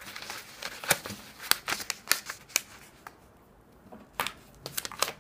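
A sheet of origami paper being folded and creased flat against a tabletop: a run of short, crisp paper crackles and taps, with a brief lull a little past the middle and more near the end.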